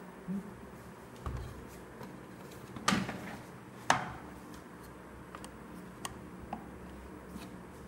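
Two sharp knocks about a second apart, among a few fainter clicks: hard objects being handled or set down.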